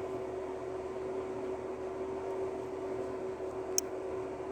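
Steady background hum and hiss with a faint constant tone running through it, and one short click about four seconds in.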